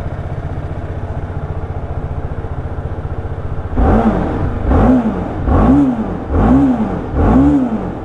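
A single-cylinder 310 sport motorcycle engine idling with an even, fast pulse, then blipped on the throttle about every second from roughly halfway in, each rev rising and falling back.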